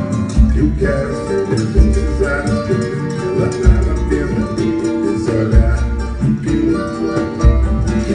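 Band music with plucked guitar over a deep bass note that comes back about every two seconds.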